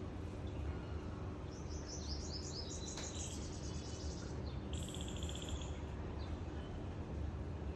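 Small songbirds calling: a quick run of high chirps starting about a second and a half in, then a short buzzy trill, over a steady low rumble.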